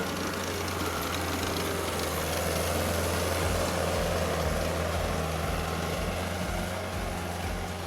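Tractor engine idling, a steady low hum.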